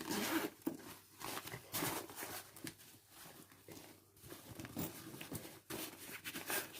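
Handling noise from a small zippered fabric toiletry pouch: a string of short rustles, scrapes and rubs as it is turned over and opened.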